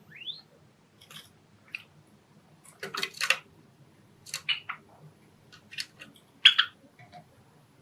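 Pet Java sparrows: one quick rising chirp at the start, then scattered short chirps and sharp beak clicks at irregular intervals, the loudest cluster about six and a half seconds in.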